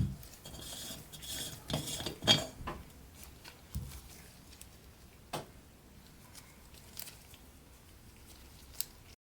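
Metal blowtorch parts clinking and knocking as they are handled, with scattered sharp clicks and a little scraping. The knocks are loudest about two seconds in. The sound cuts off abruptly just before the end.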